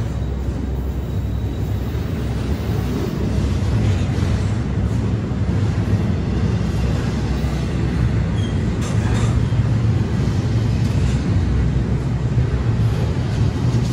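Union Pacific train passing, a steady low rumble of rolling rail traffic with a few sharper clanks about nine seconds in.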